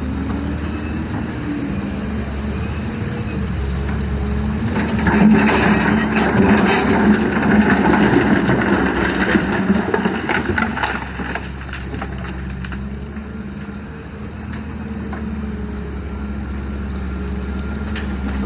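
Heavy diesel machinery running steadily, with a louder stretch of clattering and scraping from about five to eleven seconds in, typical of an excavator bucket dumping river gravel and rock into a dump truck's bed.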